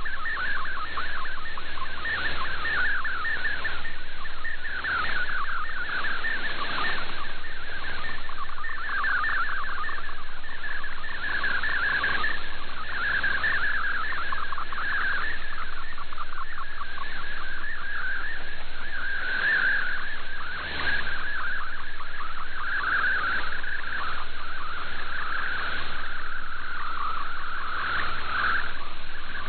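Shortwave digital-mode picture transmission received off the air: an MFSK colour image coming in as a dense, warbling chatter of tones between about 1 and 2 kHz over band hiss.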